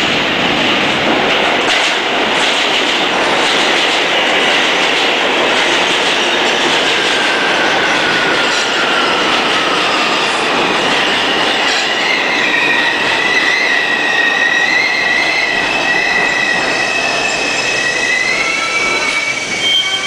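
New York City subway train pulling into a station, its wheels and running gear making a loud, dense rumble. From about seven seconds in, high-pitched tones come in as it brakes: first one gliding downward, then steady high tones from about twelve seconds on as the train slows.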